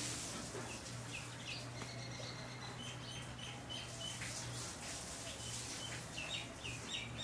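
Small birds chirping in quick runs of short, high notes, over a steady low hum.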